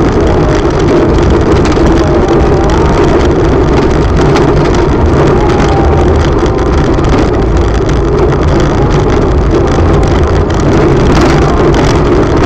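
Car driving over cobblestone paving: a loud, steady rumble of tyres on the stones mixed with engine noise, heard from inside the car.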